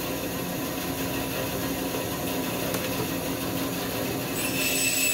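A steady machine hum, then near the end a 14-inch Delta band saw's blade cuts briefly through a thin hardwood stick, cutting it roughly to length.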